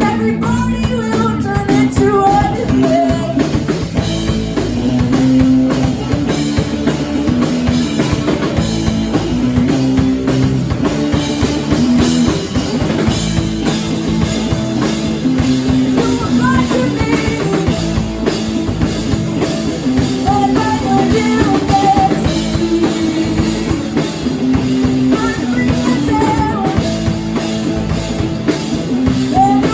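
Rock band playing live: drum kit and guitar with a steady beat, and a singer's voice coming in at times.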